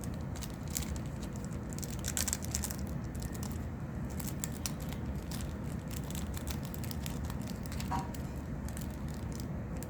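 Small clicks, ticks and light crinkles of a replacement iPhone camera lens glass and its packaging being handled at the workbench, over a steady low hum.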